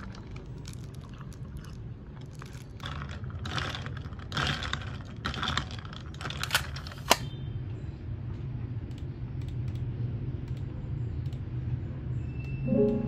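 Irregular light clicks and short clattering taps over a steady low hum, thickest a few seconds in and ending with one sharp click about seven seconds in. Soft piano music starts near the end.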